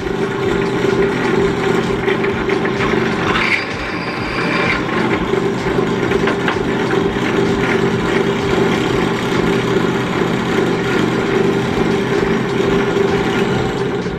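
Electric workshop machine running steadily with a constant motor hum and whine; a brief higher note joins about three and a half seconds in for around a second.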